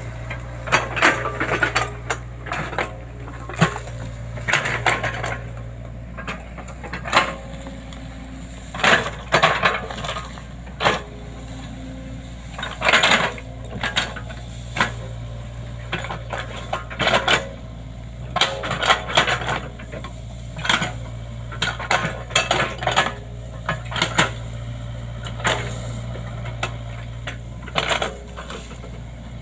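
Hydraulic excavator engine running steadily, with many irregular metallic clanks and knocks coming in quick clusters throughout.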